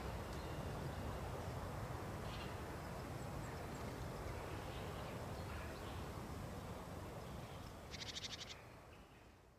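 Outdoor woodland ambience: a steady low rumble with a few faint high chirps, and a brief, rapid rattle about eight seconds in, after which the sound fades out.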